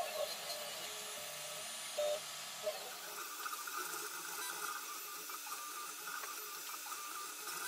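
FDM 3D printer running, its stepper motors giving short shifting tones for the first few seconds, then a steady whine as the print head moves over the part.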